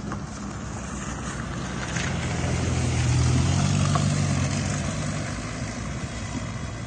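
Suzuki car driving, its engine and road noise heard from inside the cabin with wind on the microphone. The low engine drone swells louder in the middle and then eases off.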